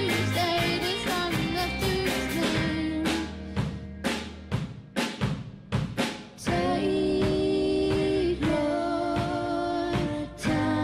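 Amateur rock band playing live: electric guitars, bass and drum kit, with a woman singing. About three seconds in, the band drops to separate drum hits. About six and a half seconds in, the full band comes back in with held notes.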